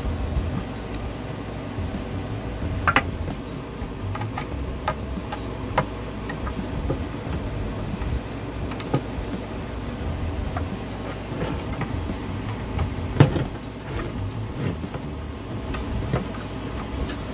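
Hand screwdriver turning screws into a wooden tray, giving scattered small clicks and creaks, with sharper clicks about three seconds in and about thirteen seconds in, over a steady low hum.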